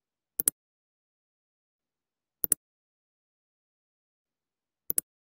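Button-click sound effect of a like-and-subscribe animation: three sharp double clicks about two and a half seconds apart, with dead silence between them, as the like, subscribe and bell buttons are pressed.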